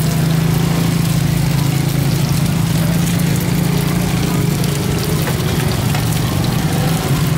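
A steady, low engine-like hum runs without a break under a constant even hiss.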